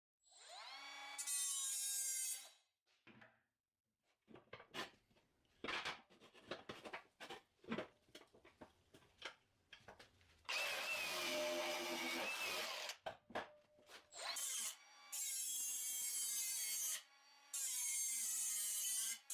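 A handheld power tool runs in several separate bursts, its pitch dropping as it slows at the start of the first. Between the bursts comes a stretch of irregular sharp clicks and knocks.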